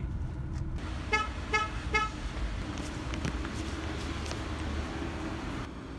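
Three short, clean beeps about half a second apart, about a second in, over a steady low rumble and hum.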